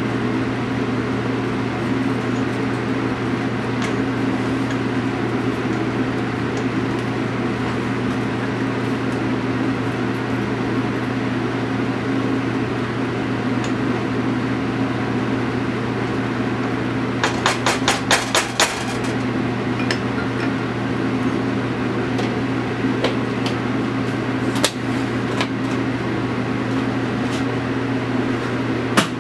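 Steady mechanical hum from a running kitchen appliance. About two-thirds of the way through comes a quick run of about eight sharp taps, and there are two more single taps later on.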